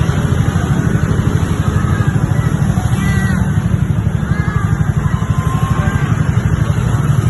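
Roadside traffic noise: a steady low engine rumble from passing or idling vehicles, with a few faint short chirps over it.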